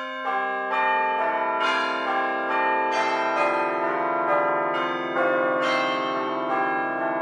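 A peal of bells, struck one after another about twice a second, each tone ringing on under the next.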